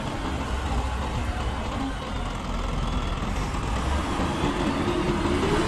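TAIAN TLT30-8 telehandler running under load, a low engine rumble with a whine that starts about four seconds in and rises in pitch.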